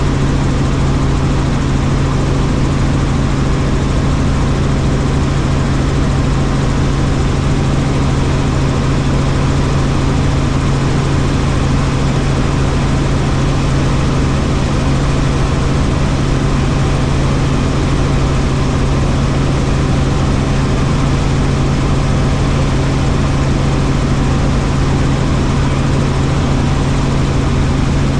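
Helicopter in flight: the steady drone of engine and rotors, with a strong low hum under a broad rushing noise.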